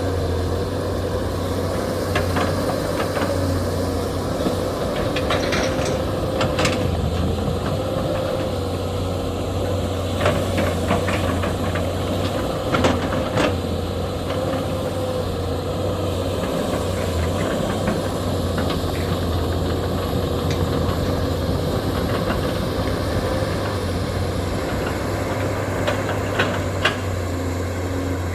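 SANY hydraulic excavator's diesel engine running steadily, with short knocks and clanks from the machine scattered through, several close together about ten to thirteen seconds in and again near the end.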